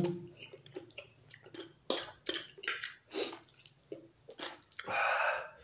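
A person slurping and chewing soupy Maggi noodles in dal broth at close range: a run of short wet smacks and slurps, with one longer slurp about five seconds in.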